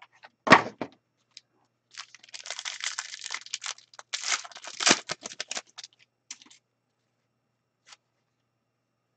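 A hockey card pack's shiny foil wrapper being torn open and crinkled by hand, a dense run of crackling from about two seconds in until about six seconds in. A single knock comes about half a second in.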